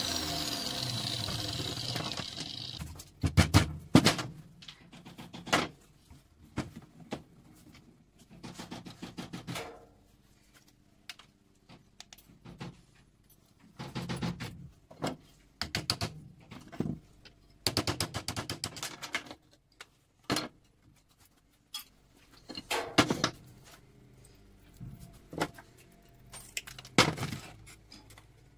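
Fine copper wire and small metal parts being handled and pulled apart by hand, giving scattered clicks, clinks and rustles. A steady whirring noise runs for the first few seconds and stops about three seconds in.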